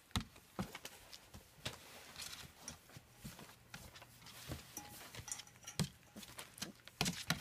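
German Shepherd puppies scuffling and play-biting a hand on a newspaper-covered floor: irregular light taps and knocks with soft paper rustling between them, a cluster of taps near the end.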